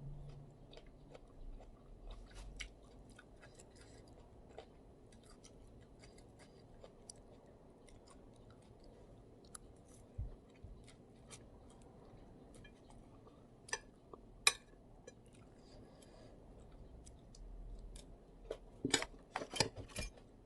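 Close-miked chewing of an instant-noodle salad with shrimp and squid: soft, wet mouth clicks throughout, a couple of sharper clicks about two-thirds of the way in, and a quick run of louder ones near the end.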